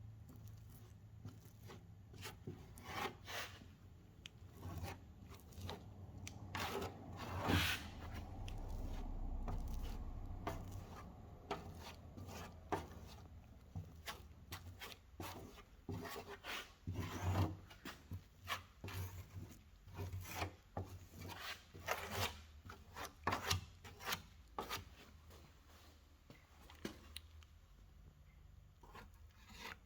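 Irregular strokes of a hand tool rubbing and scraping over body filler on a car body panel. There is a longer stretch of continuous rubbing about a quarter of the way in, then a run of shorter, sharper strokes.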